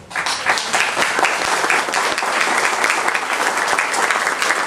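Audience applauding: many hands clapping together in a dense, even applause that breaks out all at once.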